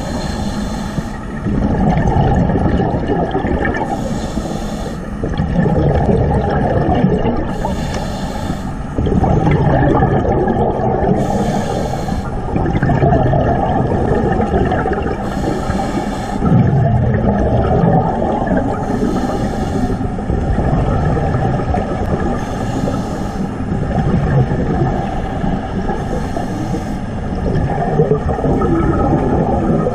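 Underwater recording of a scuba diver breathing through a regulator: a steady low rumble with a burst of exhaled bubbles about every four seconds.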